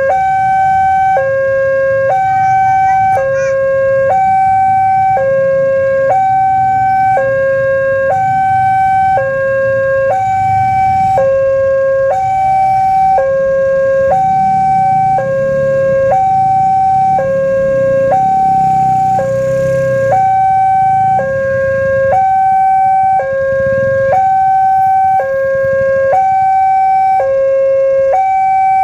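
Railway level-crossing warning alarm sounding while the gate is down: an electronic two-tone signal that switches between a low and a high tone about once a second, over a low traffic rumble.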